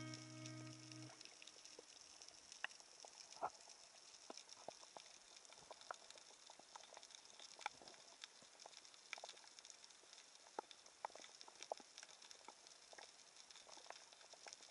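Faint underwater crackle: scattered sharp clicks and snaps at irregular intervals over a steady hiss. The last notes of background music die away about a second in.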